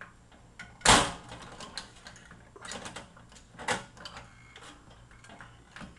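Hand pop-rivet puller squeezed stroke after stroke on a blind rivet through an aluminium nut plate and skin, its jaws clicking and snapping as they grip and draw the mandrel. The loudest snap comes about a second in and another near the middle. The worn tool takes several squeezes to pull the rivet through.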